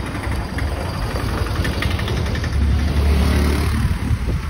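Street traffic: a motor vehicle's engine running close by, a low rumble that gets louder a little past the middle and fades near the end.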